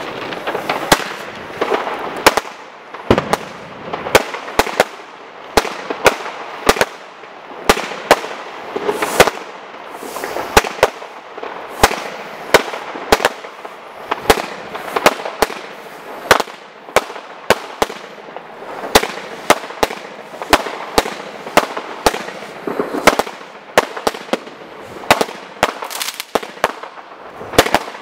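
Weco Walk of Fame 68-shot, 38 mm firework cake firing a steady run of shots, about two sharp bangs a second, with a continuous hiss and crackle of burning gold brocade between them.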